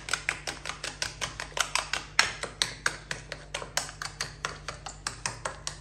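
Metal spoon beating cream with sugar and milk powder in a small bowl, the spoon clicking against the bowl about five times a second.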